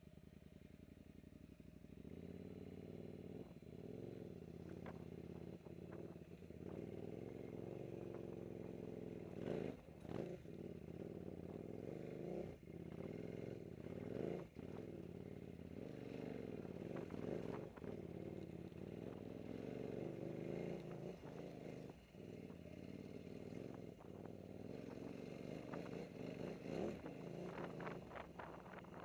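KTM 950 Super Enduro's V-twin engine running as the bike is ridden along rough singletrack, its pitch rising and falling with the throttle, with occasional knocks.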